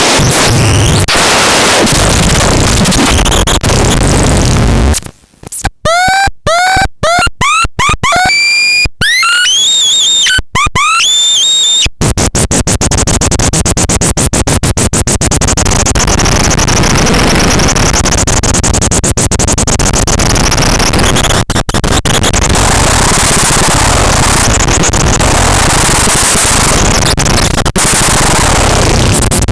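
Harsh electronic noise music: a loud, dense wall of distorted noise. From about 5 to 12 seconds in it breaks into glitchy stuttering cut-ups with short bending pitched chirps and fast clicks, then returns to the full noise with slowly sweeping high tones.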